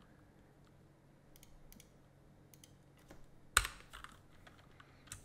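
Faint, scattered keystrokes on a computer keyboard as a file name is typed, with one louder key click a little past halfway.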